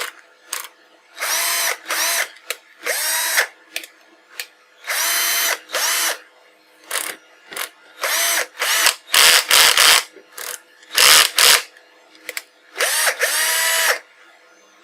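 Black & Decker 12 V cordless drill/driver motor run in a series of short trigger pulls, about eight bursts of under a second each, every one spinning up with a rising whine before it stops. The tool is running on a home-built 3S3P lithium battery pack.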